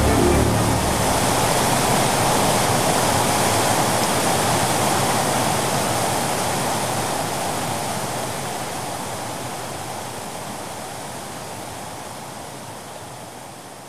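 Floodwater rushing in a dense, steady torrent that fades out slowly over the last several seconds.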